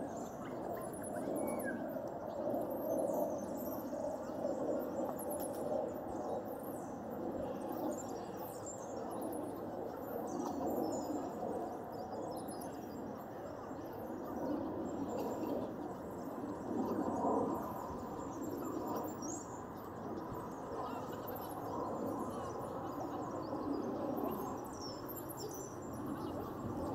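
Outdoor ambience: a steady low background murmur, with small birds chirping in short high notes scattered all through it.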